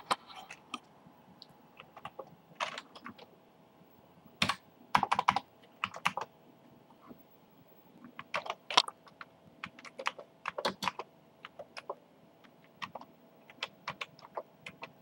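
Keys being typed on a Commodore computer keyboard: irregular clacks, sometimes singly and sometimes in quick runs, as a disk load command is entered.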